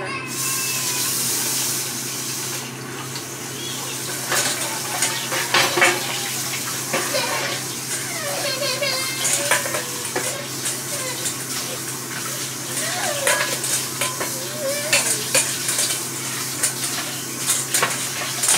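Dishes and cutlery clattering in many separate clinks, with a tap running for the first couple of seconds.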